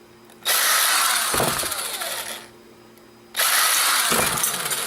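A small power screwdriver or drill runs in two bursts of about two seconds each, whirring with a pitch that bends as the motor works, while removing screws from a camera's plastic shell.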